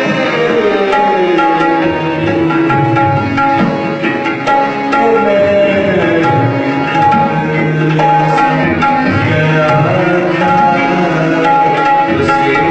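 Tabla playing: dense, quick strokes with ringing tones and pitch slides that rise and fall.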